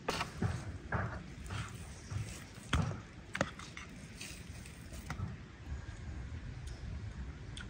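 Tableware clatter at a meal: a handful of sharp knocks and clicks of utensils, skewers and food against wooden plates and the table. They fall in the first five seconds and leave only a low background after that.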